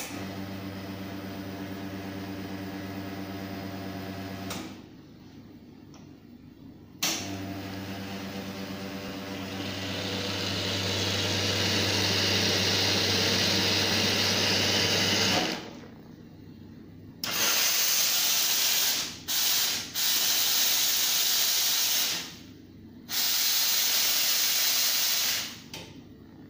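Faema E71 espresso machine. Its pump hums steadily for about four and a half seconds, then runs again while the hot-water tap pours, a hiss of water swelling over it. In the last ten seconds come four loud hisses of steam, the second one short.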